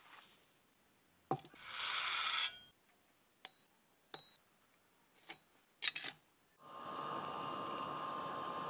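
Handling noises and a rustle of stiff copper wire, then several sharp metallic clinks with a brief ring as the small crucible is handled. From about two-thirds of the way through, a steady rushing noise with a faint hum from the charcoal fire heating the crucible as copper wire is fed in.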